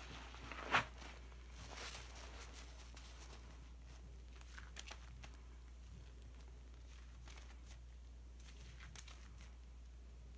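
Wet sponges squeezed and worked in a bowl of thick dish-detergent foam: faint squelching and crackling of bubbles, with one sharp, louder squish about a second in.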